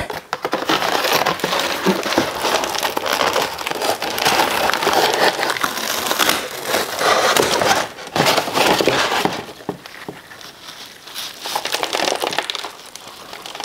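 Brown packing paper and a plastic plant sleeve crinkling and rustling as a plant is unwrapped from its shipping box. The rustling is steady for the first nine seconds or so, then comes in shorter, quieter bursts.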